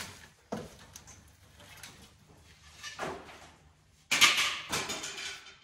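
Rustling and crinkling of dry debris (leaves, paper, cardboard) being dug through by hand. It comes in a few short bouts, the longest and loudest about four seconds in.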